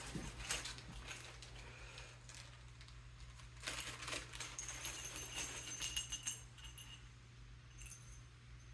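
Light clinks, clicks and rattles of small metal parts and tools being handled while a step stool is assembled, busiest in the middle, over a steady low hum.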